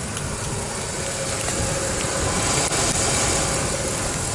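Ford F-150's 4.6-litre gasoline V8 idling steadily, with a broad steady hiss over it.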